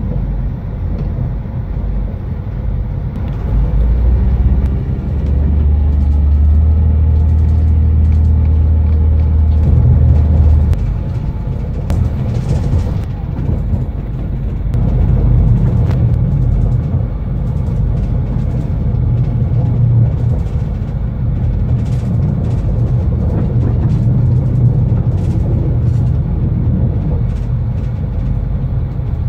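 TER regional train running, heard from inside the carriage: a steady low rumble of the engine and wheels. A steady low drone from about four seconds in stops near the middle.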